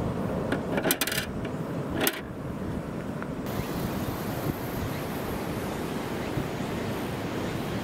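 Plastic toy garage door mechanism clicking: a quick run of sharp clicks about a second in and one more about two seconds in, as a finger presses the doors. Under it, steady wind noise on the microphone and surf.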